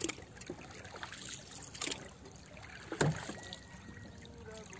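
Small boat on calm sea water: faint lapping and splashing with a few scattered knocks, the loudest about three seconds in.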